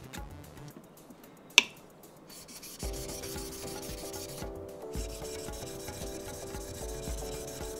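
A leather-cutting knife (kawatachi) being sharpened on a 3000-grit whetstone: the steel bevel scrapes back and forth against the stone in quick, even strokes. One sharp click comes about a second and a half in.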